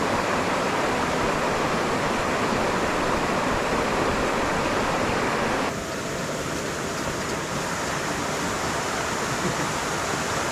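Waterfall pouring, a steady rush of falling water. A little over halfway through it cuts abruptly to a slightly quieter, duller rush of water.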